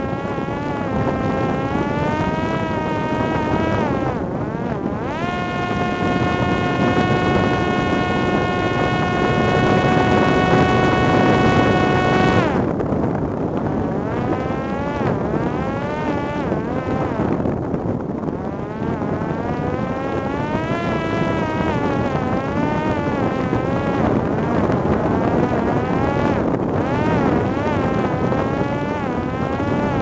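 Parrot Disco fixed-wing drone's electric motor and propeller buzzing in flight. Its pitch wavers up and down, holds steady for several seconds near the middle, then drops away and wavers again. Wind rushes over the microphone underneath.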